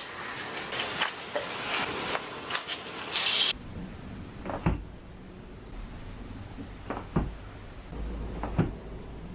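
Chiropractic adjustments: several sharp cracks and thuds, a second or two apart. About three and a half seconds in, the background changes abruptly to a quieter room.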